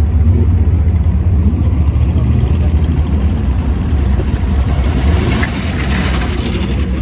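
Classic endurance racing car engines running at low revs as the cars roll slowly past, a deep steady rumble. A brighter, harsher engine sound joins about five seconds in.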